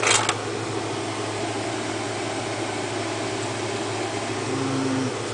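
Steady fan-like hiss with a low electrical hum underneath, and a short clatter right at the start as RAM modules are handled.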